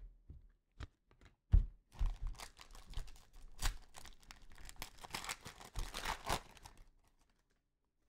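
Trading-card pack wrapper being torn open and crinkled by hand. A few light handling ticks come first, then about five seconds of dense tearing and crinkling that stops shortly before the end.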